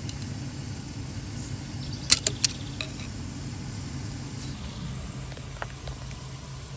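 A few sharp plastic clicks about two seconds in as the ignition module is pried off the distributor with a screwdriver, over a steady low hum.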